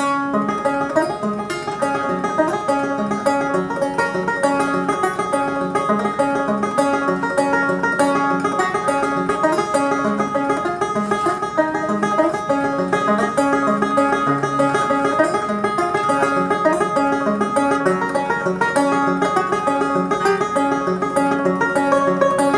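Solo banjo played live, a steady, unbroken run of plucked notes over a repeating lower line.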